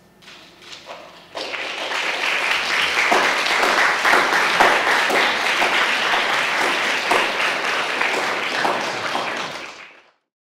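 Audience applauding: a few scattered claps at first, then full applause from about a second and a half in, cutting off suddenly near the end.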